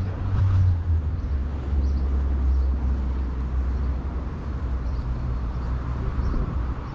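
Low, steady rumble of road traffic, with an engine-like hum underneath.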